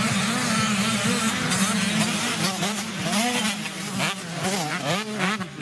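Several 85cc two-stroke motocross bikes racing, their engines revving up and down in overlapping rising and falling whines.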